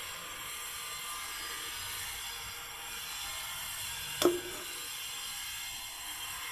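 A steady hiss, with one sharp knock about four seconds in that rings briefly.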